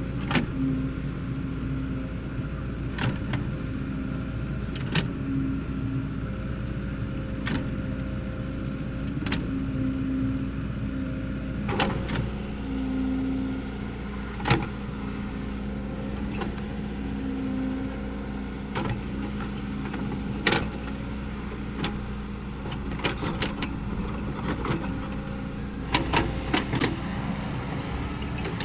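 Kobelco SK75 excavator's diesel engine running steadily, its note swelling and easing at intervals, with scattered sharp knocks as the machine works.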